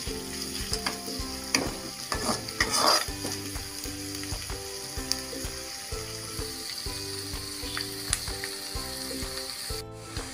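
Chopped onions and green chillies frying in oil in a metal pan with a steady sizzle, with a spatula stirring and scraping the pan a few times in the first few seconds. The onions are being sautéed towards golden brown.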